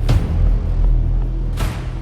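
Cinematic soundtrack music: two heavy percussion hits about a second and a half apart over a deep, sustained low rumble.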